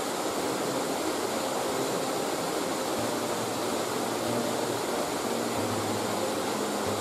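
Steady rush of river water running over rocks. From about three seconds in there is a faint low hum underneath.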